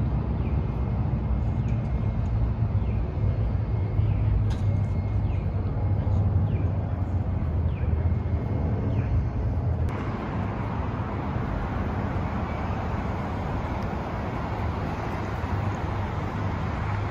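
Downtown street ambience: a steady low rumble of city traffic. About ten seconds in, a louder hiss of passing traffic rises and lasts for about seven seconds.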